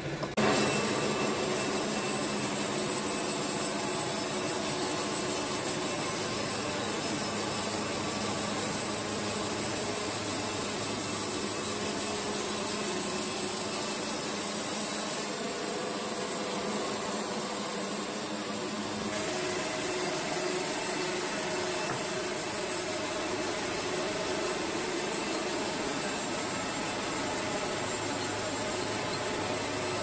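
Wood-Mizer band sawmill running steadily, its band blade cutting through a pine log, with a slight change in tone about two-thirds of the way through.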